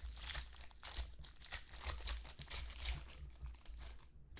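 Foil trading-card pack wrapper crinkling as it is torn open and handled, a dense crackly rustle that eases off shortly before the end.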